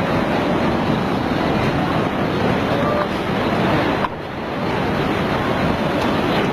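Steady rushing noise of floodwater surging past, mixed with wind on the microphone, with a short drop in loudness about four seconds in.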